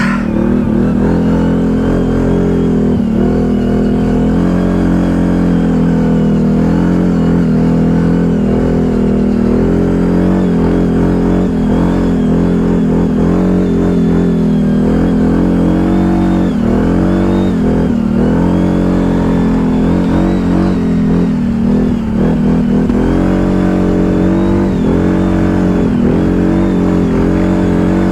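ATV engine running under load, its pitch dipping and picking up again several times as the throttle is eased and opened.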